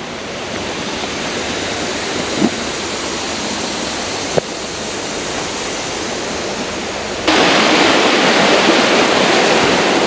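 Steady rush of water from a small waterfall, an even hiss with no pitch, stepping up abruptly to a louder level about seven seconds in. A couple of light knocks sound faintly in the first half.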